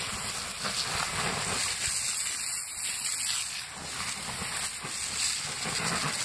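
Garden hose spraying water onto a burnt-out, smouldering tree stump, the hot wood and embers giving off a steady hiss as the water turns to steam.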